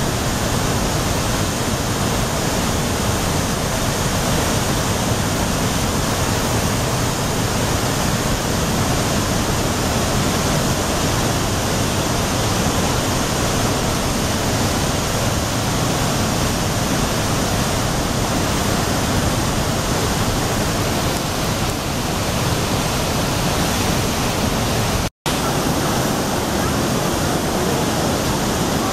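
Athabasca Falls, a large waterfall, giving off a steady, loud rush of falling water. The sound cuts out completely for an instant once, near the end.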